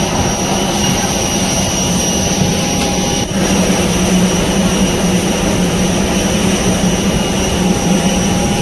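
Jet airliner running close by: a loud, steady jet whine with several constant high tones over a low rumble. One of the middle tones drops out about three seconds in.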